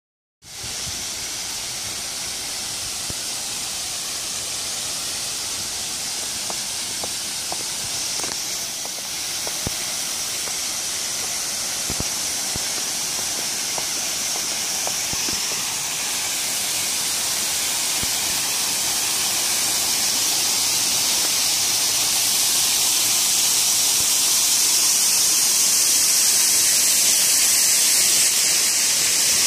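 Garden waterfall splashing into a pond: a steady rushing hiss that grows gradually louder, with a few faint ticks.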